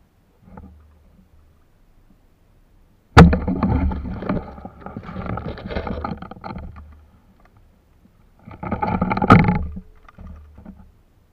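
Water splashing and sloshing in two bursts in the shallows, each starting with a sharp knock.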